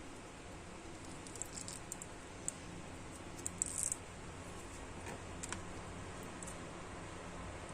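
A few small clicks and short light scrapes, typical of small plastic figure parts and tools being handled during disassembly, over a steady low hum. The clicks come in a loose cluster early on, with a brief scrape in the middle and single ticks later.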